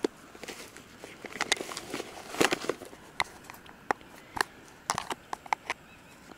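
Hard plastic compartment box being handled, with a string of sharp plastic clicks, knocks and rustling as it is picked up and one compartment's lid is snapped open; the loudest clicks come about halfway through.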